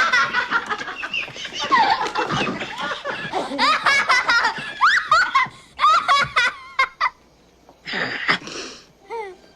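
Several women's voices cackling with laughter, overlapping and rising and falling in pitch. About eight seconds in there is a short breathy hiss.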